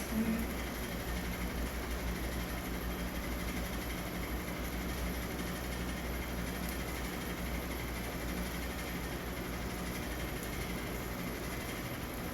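Steady low background hum, with a brief handling noise at the very start.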